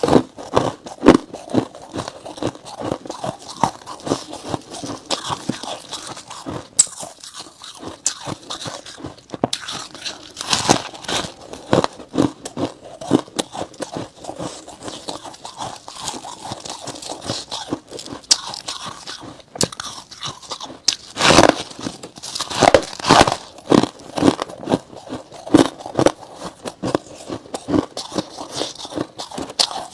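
Close-miked biting and chewing of packed freezer frost: a dense, irregular run of crunches, loudest in clusters about a third of the way in and again about two-thirds of the way in.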